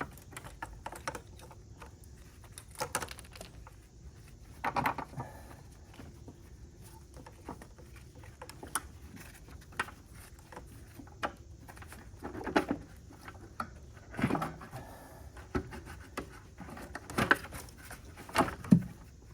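Irregular knocks, clunks and rattles of a plastic intake manifold being worked around by hand in the engine bay, bumping against the surrounding parts. The loudest knocks come near the end.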